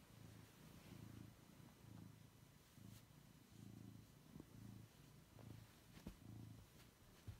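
Domestic cat purring while being stroked, a soft low purr that swells and fades with each breath, about twice a second. A couple of faint knocks come near the end as the cat gets up.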